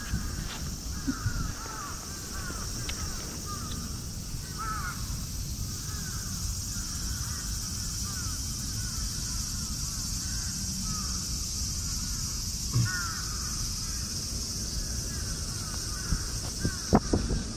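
A flock of birds calling continuously: many short, quick, downward-sliding chirps overlapping one another, over a steady high hiss. Near the end come a few loud knocks as a cat bumps against the camera.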